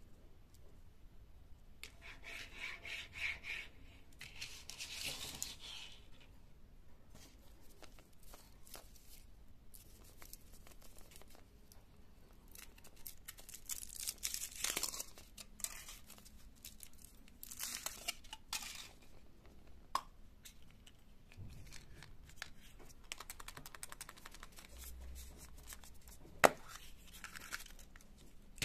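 Thin foil wrapper of a Kinder Surprise egg being peeled and crinkled off the chocolate, in several rustling, tearing bursts with small clicks between. Near the end comes a single sharp click as the yellow plastic toy capsule is opened.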